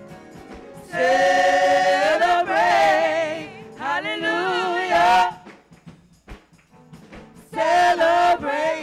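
Gospel singing by a praise team of women's voices through microphones: three long, wavering sung phrases, the longest starting about a second in, another near the middle and a short one near the end, with quieter gaps between.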